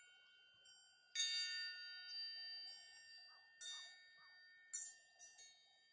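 Small handcrafted metal bells hanging on strings, struck together by hand: about six strikes, each ringing out with several clear, high tones that linger. The loudest strike comes a little over a second in, and a cluster of lighter ones follows near the end.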